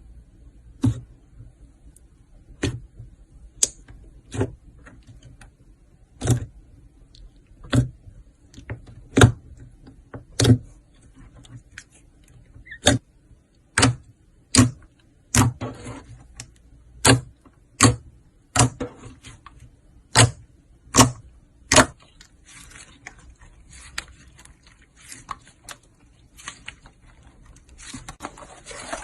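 Slime being worked by hand, giving sharp clicking pops about once a second, then a softer, denser crackling for the last several seconds.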